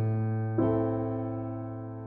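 Background music of slow sustained chords: a new chord sounds about half a second in and fades gradually.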